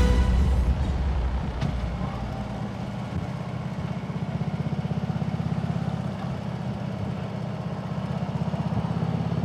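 Harley-Davidson touring motorcycle's V-twin engine running at cruising speed, heard from the rider's seat as a low, fast-pulsing exhaust beat over road noise.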